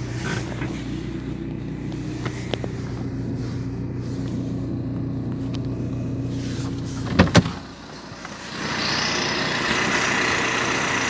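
A 1.9 TDI diesel engine idles after a cold start with a steady low hum. Two sharp clacks come just after seven seconds in. From about eight and a half seconds the idle is heard outside by the smoking tailpipe, now with a louder hissing rush over it.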